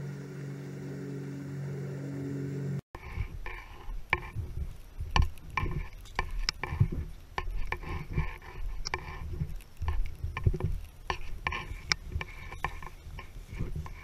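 For about the first three seconds, a steady low hum with several tones that cuts off abruptly. After that, irregular knocks, scuffs and rustling from a backpacker walking, with the camera carried close to the body and jostled by the walking and the pack.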